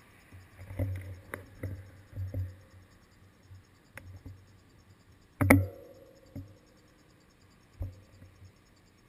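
Scattered knocks and low thumps picked up through a seat-post-mounted GoPro Hero 2 housing on a stopped bicycle, with one louder knock that rings briefly about five and a half seconds in.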